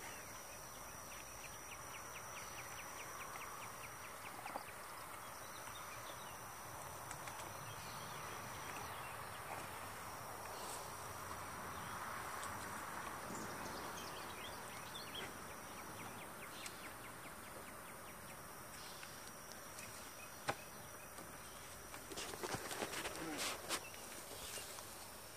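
Faint insect din: honeybees humming around a hive, with a thin, high, steady insect trill that breaks off and starts again several times. A single sharp click about twenty seconds in and a run of knocks and rustling near the end.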